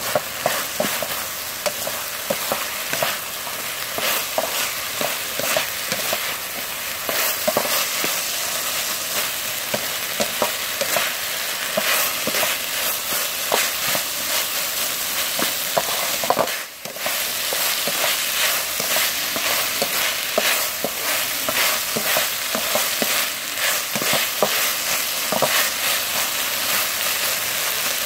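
Corn kernels, minced pork and carrot sizzling in a metal wok while a wooden spatula stirs them, scraping and knocking against the pan in many short strokes. The sound drops out briefly about two-thirds of the way through.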